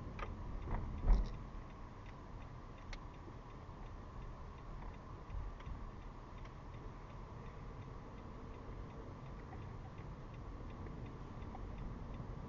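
Car turn-signal indicator ticking steadily inside the cabin over low road and engine rumble, with a single thump about a second in.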